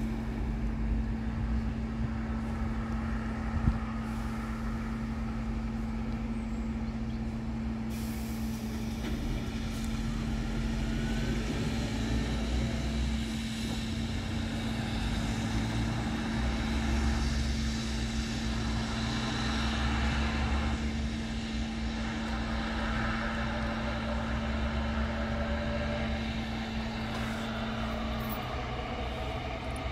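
Motor vehicle engines idling at a level crossing with the barriers down, a steady low rumble with a few louder swells. A single steady low hum runs under it and stops shortly before the end.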